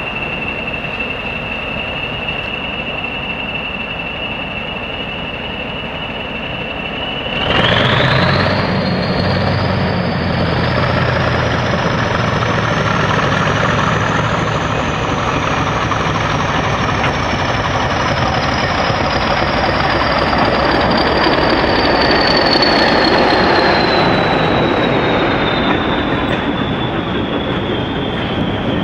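English Electric Class 40 diesel locomotive with its turbocharger whistling: a steady high whistle that climbs sharply about a quarter of the way in as the deep engine note grows louder, keeps rising for several seconds, then slowly falls as the locomotive and its coaches run past.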